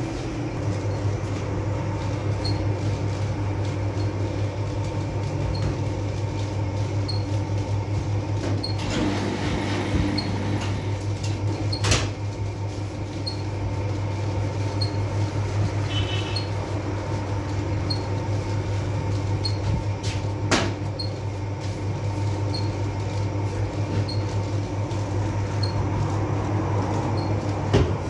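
Electric dough sheeter running with a steady low hum, a faint tick a little over once a second, and a few sharp clacks, the loudest about midway and near the end.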